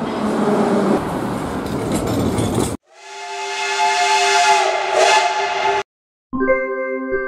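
A rushing noise of a vehicle passing close by, then, after a sudden cut, a steam locomotive's whistle sounding a chord of several pitches for about three seconds, growing louder before it cuts off. After a brief silence, a few keyboard-like notes of an intro jingle begin near the end.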